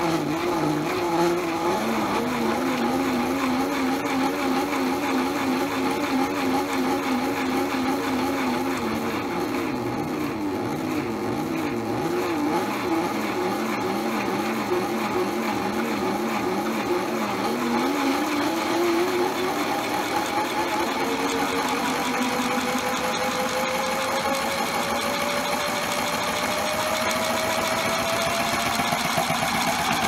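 Motor and drum of a modified toy washing machine running with one item sloshing in the water, its pitch wavering up and down. From about two-thirds of the way in, a steady rising whine as the drum speeds up into the spin.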